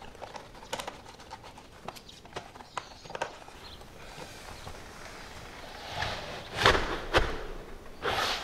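Small clicks and scrapes of a hand screwdriver turning the adjustment screws of an exterior door's adjustable threshold sill, raising it so the door seals tighter at the bottom. Near the end come a few louder knocks as the door is pushed shut against the raised sill.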